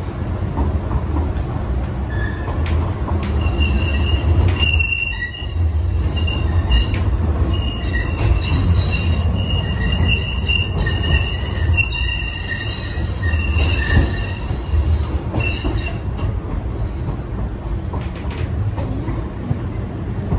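St. Louis MetroLink light rail car running, heard from inside the car: a steady low rumble, with the wheels squealing against the rails in high, thin, on-and-off squeals from about two seconds in until about sixteen seconds. Occasional sharp clicks come from the wheels passing over rail joints.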